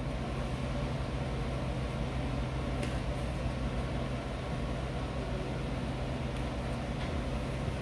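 Steady low machine hum with a faint hiss, and a couple of faint clicks.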